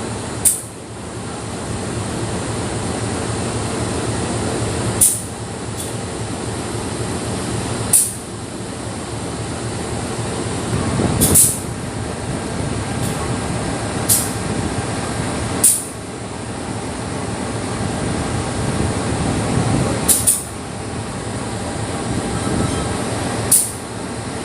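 A train standing at a station platform with its locomotive running in a steady rumble. About eight short, sharp, hissy bursts come every two to four seconds over it. The departure horn has not yet sounded.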